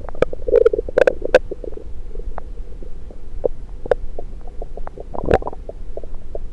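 Bowel sounds picked up through a stethoscope on the belly: irregular gurgles and sharp little pops. There is a busy cluster about half a second to a second and a half in, and a louder gurgle about five seconds in.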